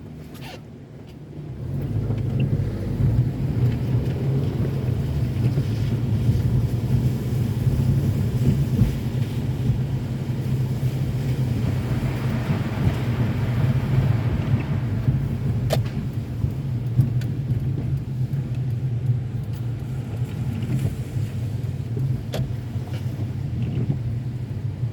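Car driving on a wet city street: a steady low rumble of engine and tyres that grows louder about two seconds in as the car gets moving, with a few faint clicks.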